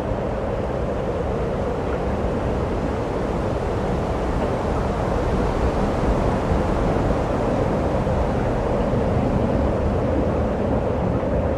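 Strong wind blowing over the microphone: a steady rushing noise with a deep rumble underneath.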